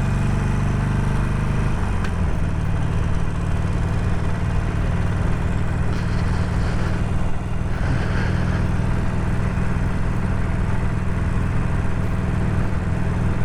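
Harley-Davidson Sportster 48's air-cooled V-twin engine running steadily under way, heard from the rider's helmet microphone over a rush of air. The engine note changes about two seconds in, then holds steady.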